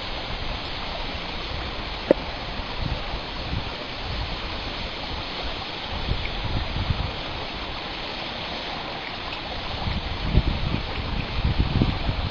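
A steady rushing hiss, like running water, with a sharp click about two seconds in and low rumbles near the end.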